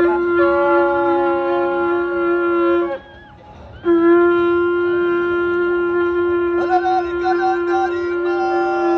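A wind instrument playing a melody over a steady drone note; the sound breaks off for about a second, a few seconds in, then carries on.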